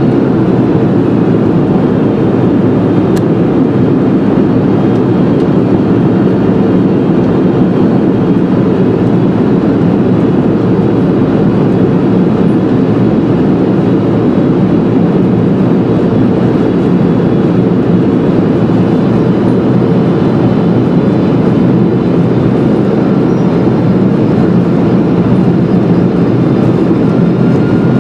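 Steady rushing cabin noise of a Boeing 747-400 descending to land, its four GE CF6-80C2 turbofan engines and the airflow over the fuselage heard from inside the cabin.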